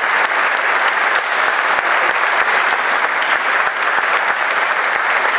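Audience applauding steadily in a large, reverberant church.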